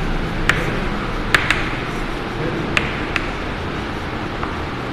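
Steady room noise with a few short, sharp taps, typical of writing on a classroom board.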